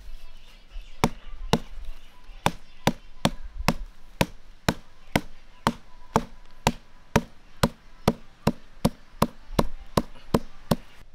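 Hammer pounding a slab of fibrous tree bark on a wooden stump, steady blows about two a second, beating the bark soft so its juice can be pressed out.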